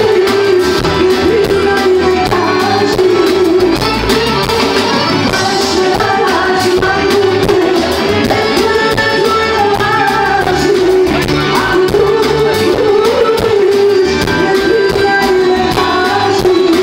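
Amplified live band music with a woman singing into a microphone, loud and continuous.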